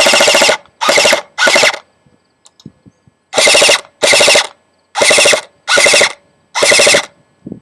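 Airsoft electric gun (AEG) with a Matrix Magnum 3000 motor firing about eight short full-auto bursts, each a fast, even mechanical rattle, with a longer pause about two seconds in. The upgraded motor cycles the gearbox at about 18 rounds a second.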